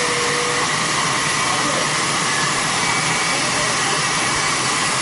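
Steady noise of running machinery: an even, loud hiss with a few faint steady whines over it.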